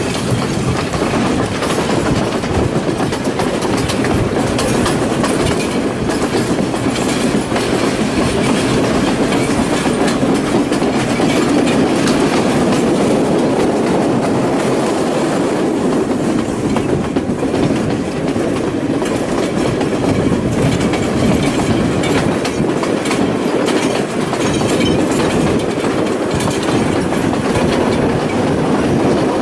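Passenger train running along the line, heard from on board: a steady rumble of wheels on track, with frequent clicks as the wheels cross rail joints.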